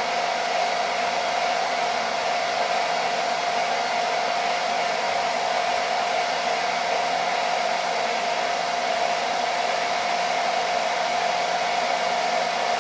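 Handheld hairdryer running steadily, blowing hot air with a constant whine over its rushing air. The air is heating adhesive price stickers to soften the glue so they peel off cleanly.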